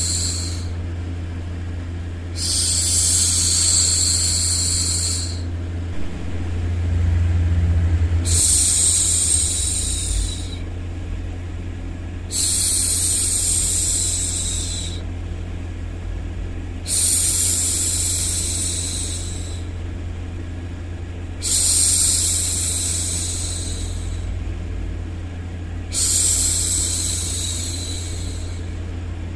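A woman's voice making long, steady "shhh" hushing sounds, each lasting about three seconds and repeated every four to five seconds, over a constant low white-noise hum.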